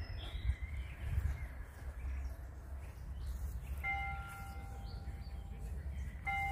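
Low, gusting wind rumble on the microphone, with birds calling in the park trees. About four seconds in, a held, steady tone made of several pitches sounds, breaks off, and comes back near the end.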